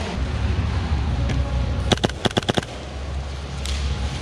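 Airsoft gunfire: a quick burst of about six sharp shots about two seconds in, with a single shot a little before, over a steady low rumble.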